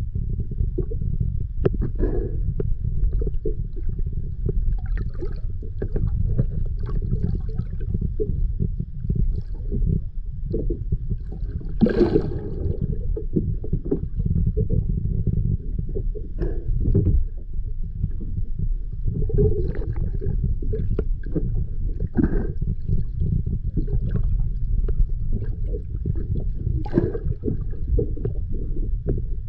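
Underwater ambience picked up by a camera below a boat's hull: a steady low rumble of moving water, with scattered faint clicks and crackles and a louder gurgle about twelve seconds in.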